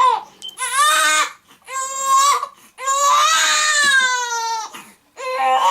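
Infant screaming in a run of wails, about four cries with short breaks, the longest about two seconds. He is crying for more milk after the bottle was stopped.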